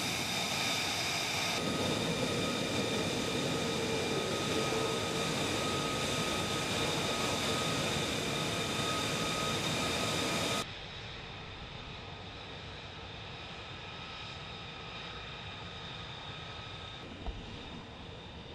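F-35B fighter jet's single turbofan engine running as the jet taxis close by: a steady rushing roar with a high whine over it. About ten seconds in it cuts abruptly to a quieter, duller, more distant jet engine sound.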